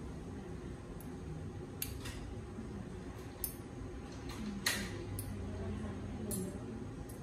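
Toenail clippers snipping toenails: about six short, sharp clips at irregular intervals, the loudest about two-thirds of the way through.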